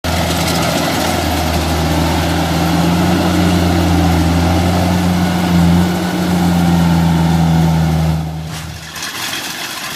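Rice combine harvester's diesel engine running steadily under load, then dropping off about eight seconds in as the machine chokes on wet, clumped rice.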